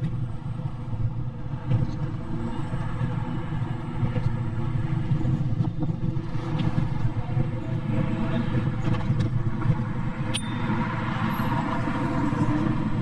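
Steady low rumble of street traffic and outdoor city noise, with a single sharp click about ten seconds in.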